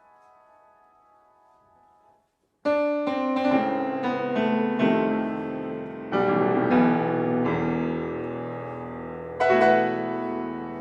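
Solo piano: a held sound fades away to nothing, then after a brief gap loud chords and notes come in quickly one after another, and the sound is left to ring. Another strong chord comes near the end and rings on.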